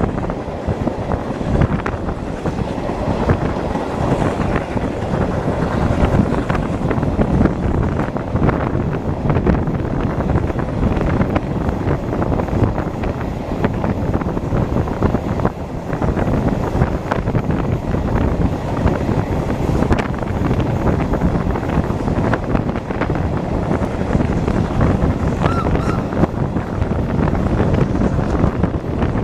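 Wind buffeting the microphone held out of the window of a moving steam-hauled train, over the steady running noise of the carriages on the rails.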